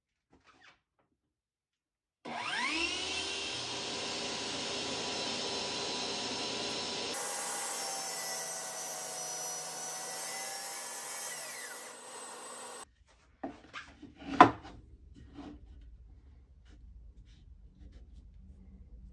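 Portable table saw spinning up and running, its whine dipping briefly in pitch as the blade cuts through a 2x4, then stopping abruptly. After it, a few wooden knocks and one loud thump as the board is handled.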